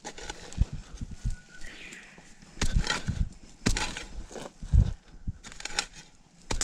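A garden tool chopping into and scraping through soil in irregular strikes, with a few heavier thuds.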